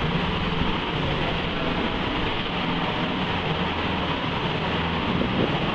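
A small engine running steadily on a yellow concrete machine, a constant low hum with no change in speed.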